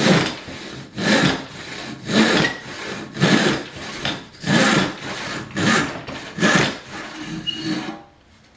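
Freshly sharpened Disston D8 coarse-toothed rip saw cutting wood by hand, about eight steady strokes roughly a second apart, stopping about eight seconds in. The even rasp of each stroke is the sign of a saw cutting quickly and cleanly after sharpening.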